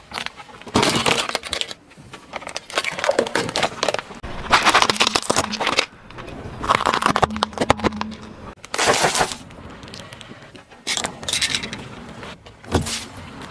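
Hard plastic objects cracking, snapping and crunching as a car tyre rolls over them, in a string of short clips: a plastic hair dryer, a candy-filled clear plastic tube and a pair of sunglasses. Each crush is a dense burst of sharp cracks lasting a second or two, with quieter gaps between.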